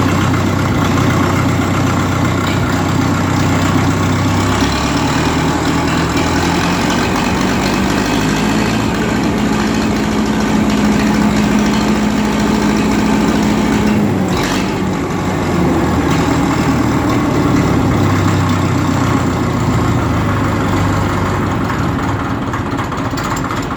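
1951 Caterpillar D4 crawler's four-cylinder diesel engine running, its pitch rising about five seconds in and holding a higher steady note for several seconds. A sharp knock comes about fourteen seconds in, and the engine then settles back to a lower speed.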